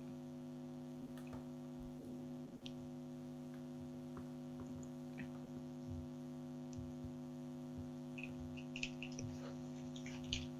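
Steady, buzzy electrical mains hum with several overtones on the audio line, with a few faint clicks near the end.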